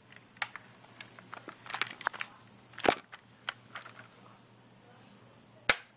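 Plastic clicks and knocks from a Nerf Hammershot blaster being handled and worked, one every second or so, with the sharpest snap near the end.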